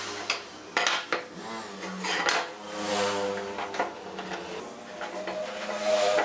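Pine boards and a wooden marking gauge handled on a wooden workbench: several sharp clacks and knocks of wood on wood as boards are set down, and the gauge's pin scratching along the board.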